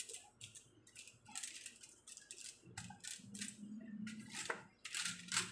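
Metal kitchen tongs clicking and scraping against aluminium foil in a baking tray as pork ribs are turned over: a quick, irregular string of clicks and foil crinkles.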